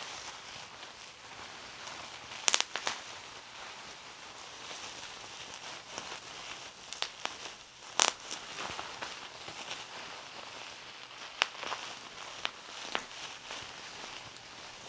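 Bubble wrap being crumpled and handled, a steady crinkling with a sharp pop every few seconds as single bubbles are squeezed. It is a foley stand-in for the crackle of a fire.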